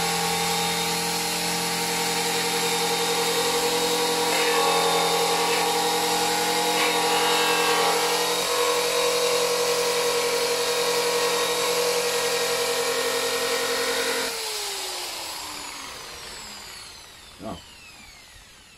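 Angle grinder with a purple abrasive strip disc running with a steady whine, stripping paint and rust off a car's steel wheel arch. About fourteen seconds in it is switched off and spins down with a falling whine, and a single light knock follows near the end.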